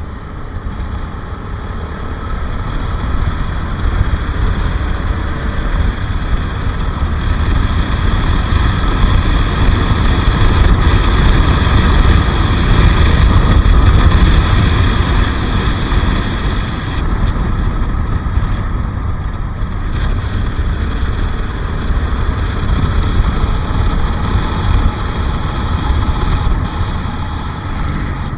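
Bajaj Pulsar RS 200 motorcycle being ridden, its engine running under way with heavy wind rumble on the microphone. The sound builds in loudness for about the first half, then eases off.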